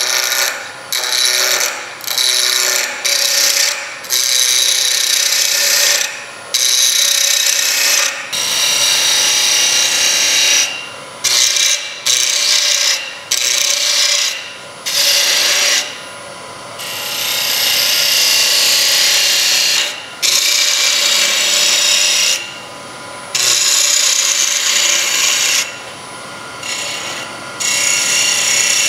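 A quarter-inch bowl gouge cutting a small piece of ash spinning on a wood lathe. The cuts come as a series of passes, each a second to a few seconds long with short breaks between them, and the longest cut falls a little past the middle.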